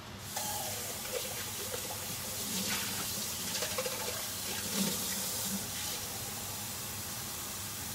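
Kitchen tap turned on about half a second in, water running steadily, filling a container to add to the pot.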